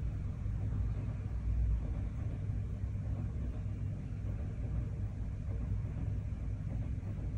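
Low, steady rumble of a shinkansen bullet train running past, together with city traffic, muffled through a hotel window's glass.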